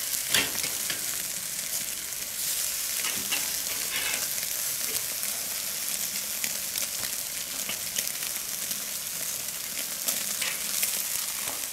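Pork pieces sizzling on the grate of a charcoal kettle grill over hot coals, a steady hiss. Metal grill tongs click against the meat and grate now and then, sharpest about half a second in.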